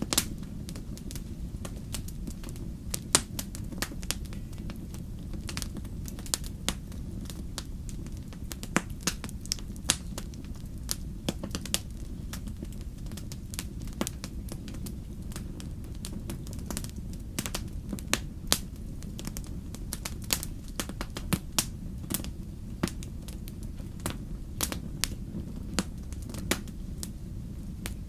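Wood campfire crackling: irregular sharp pops and snaps, several a second, over a low, steady rumble of the flames.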